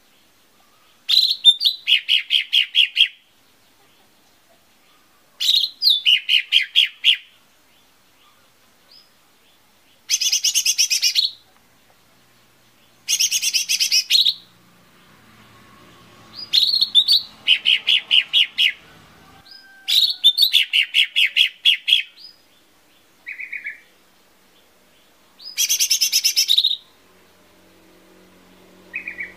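Cucak ijo mini, a small green leafbird, singing in about eight short bursts. Each burst is a second or two of rapid, evenly repeated trilled notes, with a few seconds of quiet between bursts.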